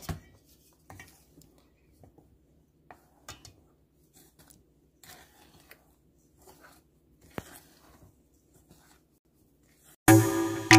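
Wooden spoon folding flour into batter in a stainless steel bowl: faint, irregular scraping and rustling strokes. Loud electronic music with a beat starts abruptly near the end.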